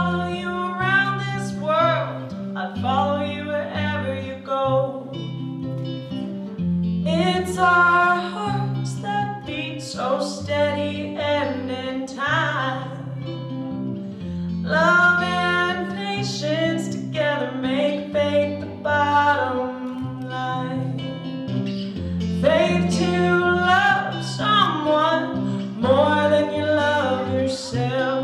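Live slow song: singing over two acoustic guitars.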